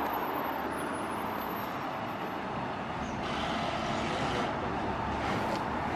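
Road traffic passing on a city street: steady tyre and engine noise from cars and a truck, growing a little louder about three seconds in.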